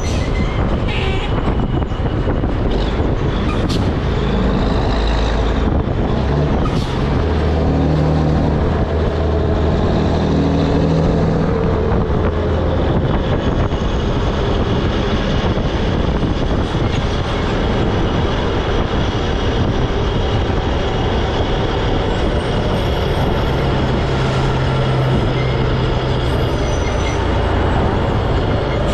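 Volvo N12 truck under way with its loud dual exhaust, heard from a seat on the outside of the truck: a steady diesel drone under heavy wind rush and road noise on the microphone, the engine note pulling stronger about a third of the way in and again near the end.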